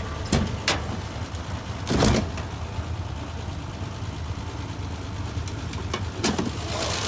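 1966 Plymouth Valiant's slant-six engine idling steadily just after a −15 °F cold start. A few short knocks sound over it, the loudest about two seconds in.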